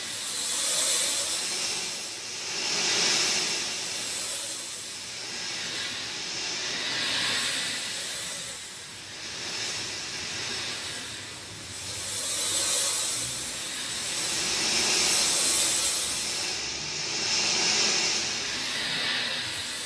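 Rain falling steadily: an even wash of noise that swells and eases every two to four seconds.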